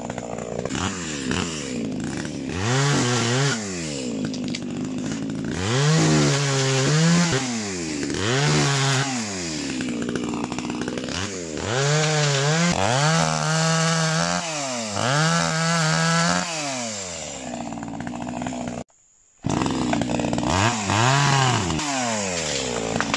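Echo CS3000 one-handed two-stroke chainsaw revving up and down again and again, dropping back to a steadier speed between bursts, as it cuts through undergrowth and small stems. The sound drops out for about half a second near the end.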